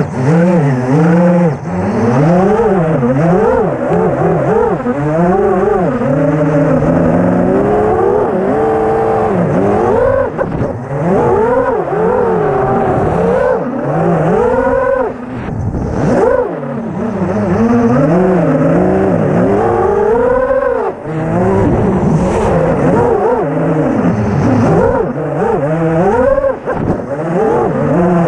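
6-inch FPV racing quadcopter's brushless motors and propellers, heard from its onboard camera. It gives a loud, steady whine that rises and falls in pitch over and over as the throttle is worked in flight, with brief drops when it is throttled back.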